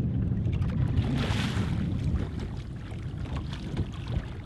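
Wind buffeting the microphone on a small boat: a low, uneven rumble with water moving around the hull, and a brief hissing rush about a second in.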